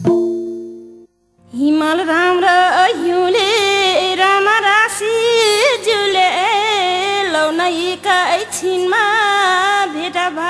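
Nepali thado bhaka folk song: a held accompanying chord fades out in the first second, and after a brief pause a singer takes up a long, drawn-out, heavily ornamented vocal line over a steady low drone.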